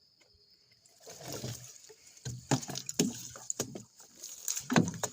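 Irregular water splashing and sloshing with knocks against a small boat as a fishing line is hauled in with a small catfish on it. A steady high insect trill is heard in the first second before the splashing starts.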